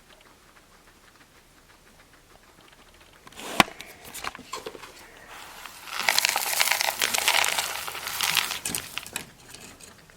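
A sharp knock about three and a half seconds in, then dry guinea-pig pea flakes rustling and crackling in a box, loudest over the second half.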